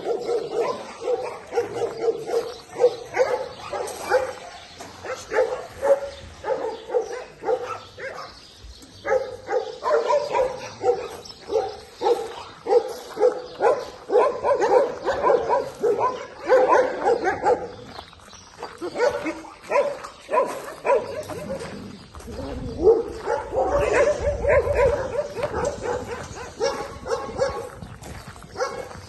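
Several dogs barking and yipping over one another in a rapid, continuous chorus. A low rumble joins in about three quarters of the way through.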